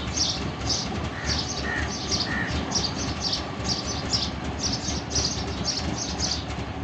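Suzuki Mehran's small three-cylinder engine idling unevenly and misfiring after a cold start, its low rumble pulsing irregularly. Short high chirps repeat about three times a second over it.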